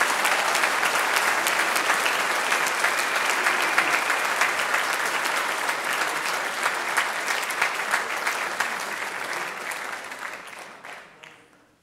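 Audience applauding after a tune ends, dense clapping that dies away near the end.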